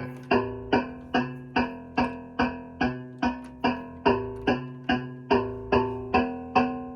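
Buchla 200 modular synthesizer playing a steady stream of short plucked notes, about two to three a second, each with a sharp attack and quick decay. The pitch stays the same while the tone colour shifts from note to note as the overtones change.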